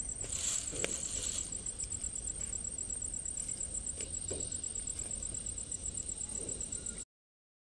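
Insect trilling steadily at a high pitch over low outdoor rumble, with a few faint crackles from a small wood fire. The sound cuts off suddenly near the end.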